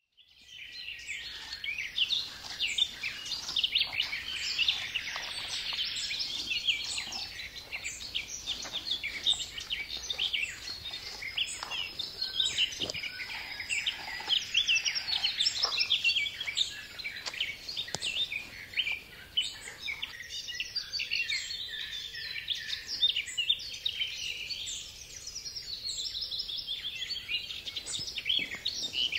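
A dense chorus of small songbirds singing and chirping, many short high chirps and trills overlapping without a break, fading in over the first second.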